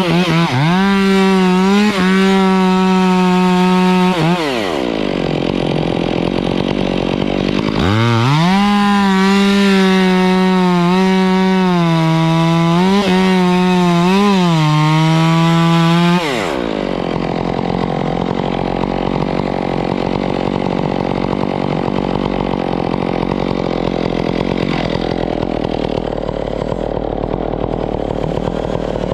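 Stihl chainsaw with a new bar running at full throttle, cutting into a Canary Island date palm. Its pitch dips briefly under load. It drops back about four seconds in and revs up again about eight seconds in for a longer cut, then drops to idle about sixteen seconds in and keeps running.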